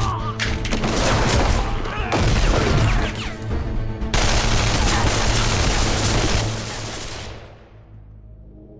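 Fight impacts and grunts, then a long volley of rapid handgun fire that dies away about seven seconds in, over a dramatic film score that carries on as a low drone.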